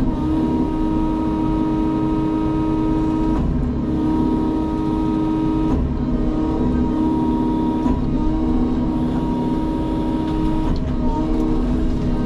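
Sany excavator's diesel engine and hydraulics running under load, a steady whine that steps to a new pitch every couple of seconds as hydraulic functions engage and release.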